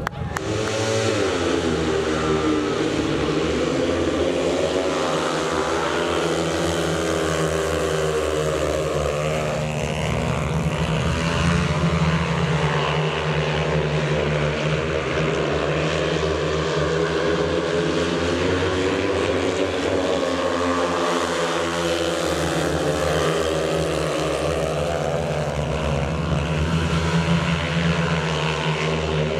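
Speedway bikes' single-cylinder 500 cc methanol engines running at race speed, their pitch rising and falling again and again as the riders open and close the throttle around the laps.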